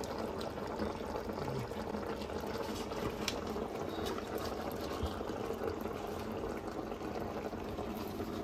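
Pork curry simmering in an aluminium pot, a steady bubbling, with a few light crackles as mustard leaves are pressed down into it.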